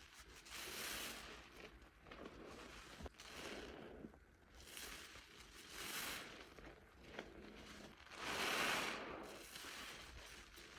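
Wet soap foam being squeezed and worked, making a fizzing, squelching hiss that swells and fades every second or two. The loudest swell comes about eight seconds in.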